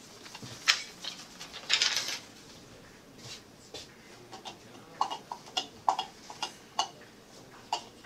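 Scattered sharp clicks, with a short rustle about two seconds in and a quick run of clicks in the second half: a computer keyboard and mouse being worked at a lectern.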